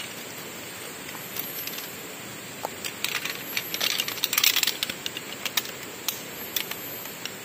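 Metal poles of a folding camping chair frame clicking and clattering against each other as the frame is unfolded, with a burst of rattling about three to five seconds in.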